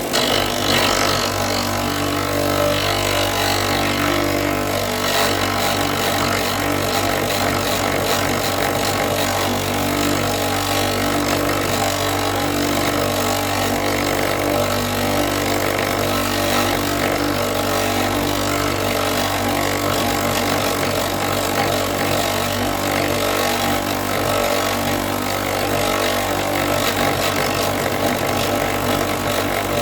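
Electric power tool running steadily while grinding a wooden walking stick's tip to a point, hard enough that the friction scorches the wood.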